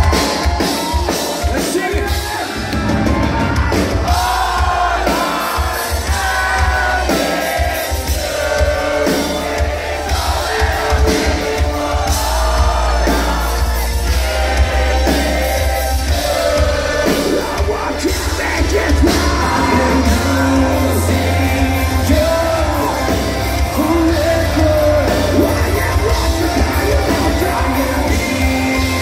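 Live metal band playing loud, with a singer's voice over heavy bass, distorted guitars and drums, heard from among the audience in a concert hall.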